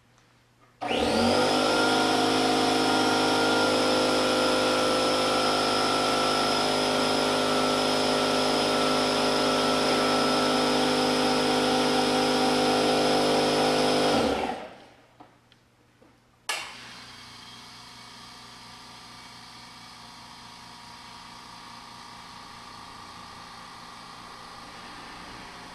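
California Air Tools 1610A oil-free dual-piston air compressor starting up, running steadily for about thirteen seconds, then stopping. A couple of seconds later a quieter, steady hiss starts suddenly and runs on.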